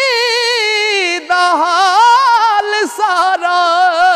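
A man singing a Punjabi Sufi kalam, holding a long high note with vibrato. About a second in the note breaks off briefly, and he goes into a new wordless phrase that winds up and down in pitch.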